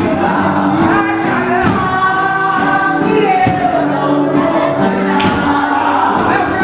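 Cacuriá music: a group singing a folk song together over percussion, carrying the dance.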